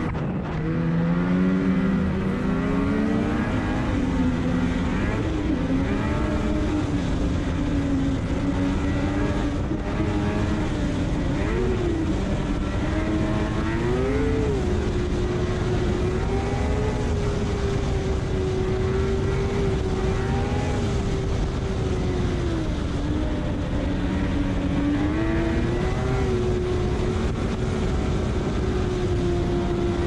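Ski-Doo MXZ Blizzard snowmobile's two-stroke engine running hard at trail speed, its pitch rising and dipping with the throttle and then holding steadier, over a rush of wind and track noise.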